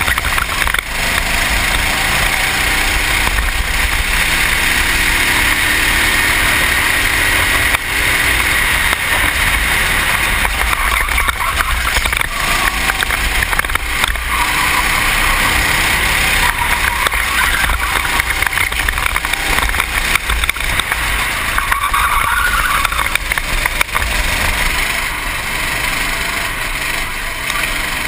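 Racing kart engine running hard under way, its pitch rising and falling through the corners, heard from the driver's helmet with heavy wind noise on the microphone.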